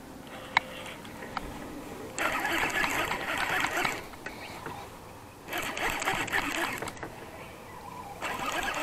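Fishing reel cranked in three spells of a couple of seconds each, a close whirring rattle of its gears, reeling in a hooked fish. A single sharp click about half a second in.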